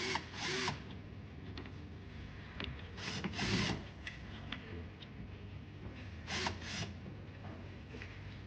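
Wooden bed frame parts rubbing and scraping as they are handled and fitted, in three short bursts with faint knocks and clicks between.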